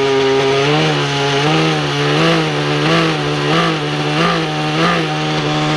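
Radio-controlled model helicopter's two-stroke engine and rotor running in a hover: a loud, steady buzz whose pitch wavers up and down slightly about every two-thirds of a second, then holds steady near the end.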